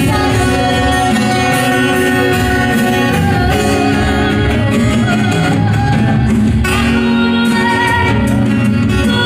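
Acoustic band playing a song: a singing voice over guitar, with a steady beat.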